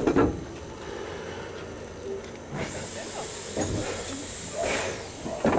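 A long, steady hiss of escaping steam or air from the steam train, starting about halfway through and lasting about two and a half seconds, with a short knock at the start and a louder burst of noise right at the end.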